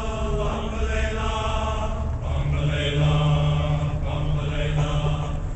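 Men's chorus singing in harmony with long held notes, a strong low note sustained through the second half.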